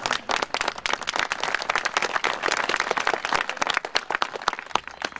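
Applause from a small group of people, many separate hand claps overlapping, thinning out and dying away near the end.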